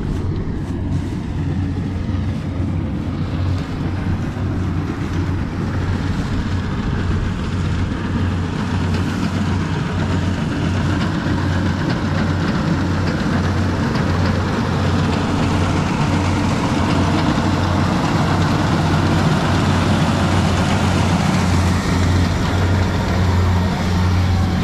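Rice combine harvester running steadily as it cuts and threshes, with a strong low engine hum under a broad mechanical rush, growing a little louder near the end.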